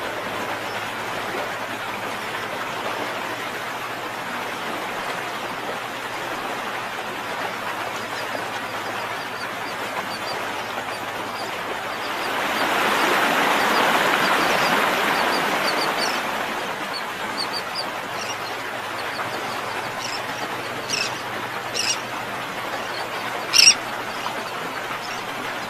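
Outdoor bird ambience: a steady rushing noise that swells for a few seconds midway, with birds chirping and three short, sharp calls near the end.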